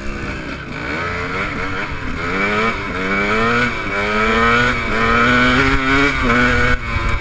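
Enduro dirt bike engine under way, its pitch climbing and dropping back again and again as the throttle is worked.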